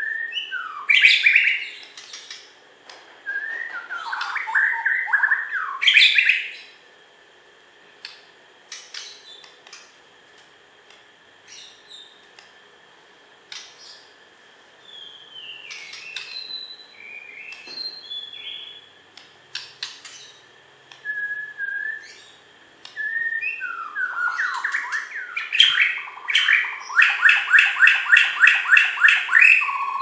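White-rumped shama (Bornean murai batu) singing: loud bursts of varied whistled and harsh phrases, sparser single notes in the middle, and near the end a fast run of evenly repeated notes, about five a second.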